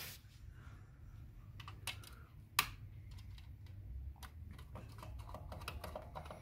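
Irregular light clicks and taps of a hand tool and metal fittings as screws are fitted on a sewing-machine motor mount, with one sharper clack about two and a half seconds in and a run of small clicks near the end.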